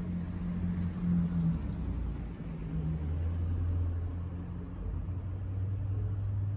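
Steady low engine-like rumble with a droning hum, which drops away abruptly at the very end.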